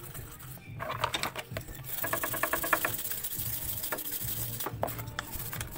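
Small detailing brush scrubbing the metal of an engine's valve cover and strut bar, a fast run of scratchy back-and-forth strokes about a second or two in.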